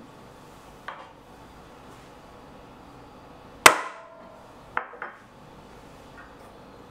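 Espresso-prep gear handled on the counter: a light click, then a sharp metallic knock with a brief ring about three and a half seconds in, followed by two quick clicks about a second later.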